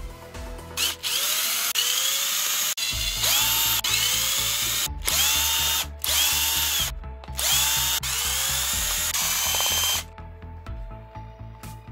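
Cordless drill/driver backing out the housing screws of a drill, in a series of short runs that each spin up quickly in pitch and then hold, stopping about ten seconds in. Background music plays throughout.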